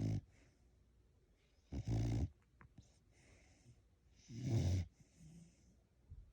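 Snoring in a steady rhythm of sleep breathing: two loud, deep snores about two and a half seconds apart, each about half a second long, with the tail of another at the very start and soft breathy exhales between them.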